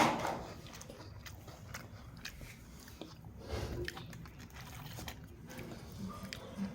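A person bites into a crisp, lightly salted biscuit with a sharp crunch, then chews it with scattered small crunches. A second, smaller crunch comes about halfway through.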